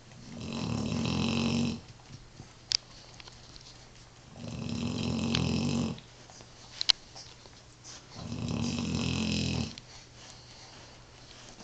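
An old dog snoring in its sleep: three long snores about four seconds apart, each swelling up over about a second and a half and then stopping short, with a couple of brief clicks between them.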